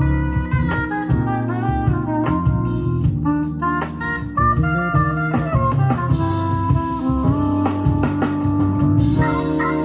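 Jazz music with saxophone and drum kit, played back from a cassette recording on a Sony TC-KA7ES tape deck.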